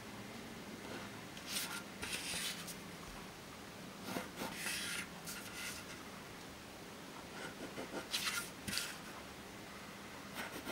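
Pen drawing short lines along a plastic ruler on paper, in three faint scratchy bursts of strokes.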